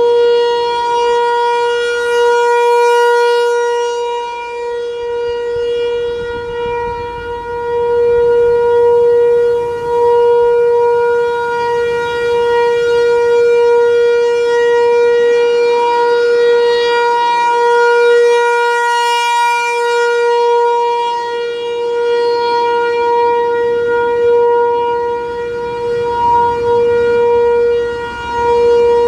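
American Signal ASC T-128 rotating electromechanical outdoor warning siren sounding one steady tone in its test signal, without rising or falling in pitch. Its loudness swells and fades as the rotating horn sweeps past, about every 17 seconds.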